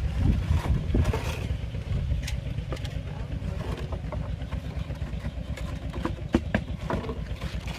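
A small engine running steadily at a fast even pulse, with scattered knocks and clatter over it.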